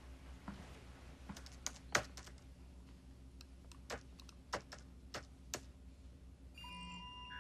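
Scattered keystrokes on a computer keyboard, about a dozen irregular clicks, followed near the end by steady electronic beeping tones from the computer.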